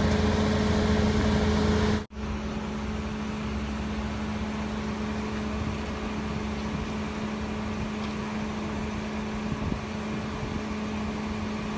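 Steady hum of an idling car engine, with a brief drop-out about two seconds in.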